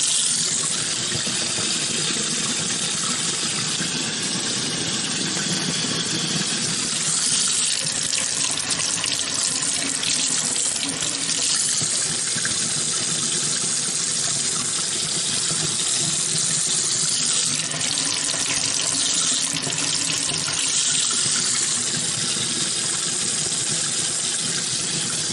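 Kitchen faucet running steadily into a stainless steel sink, the stream splashing over raw chicken breasts rinsed by hand, its sound shifting as the meat moves under the water.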